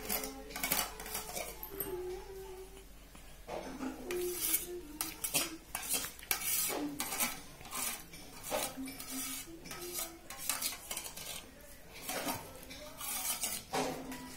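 Metal dishes and cutlery clinking and clattering in irregular bursts.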